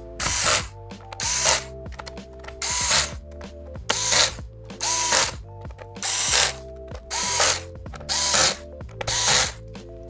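Electric screwdriver whirring in about nine short bursts, roughly one a second, as it drives the laptop's bottom-cover screws home. Background music plays underneath.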